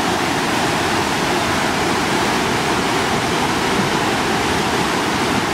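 Niagara Falls: a steady, dense rush of falling water.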